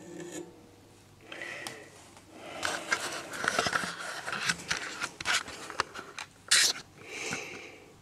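Camera handling noise: scraping and rubbing with many small clicks as the camera is picked up and moved, with one sharper, louder scrape about two-thirds of the way through.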